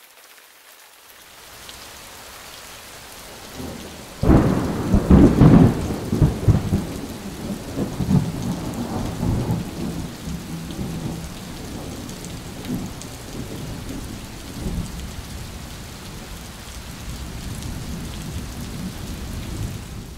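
Thunderstorm sound effect: steady rain, then a sudden loud thunderclap about four seconds in that rumbles on and slowly fades under the continuing rain.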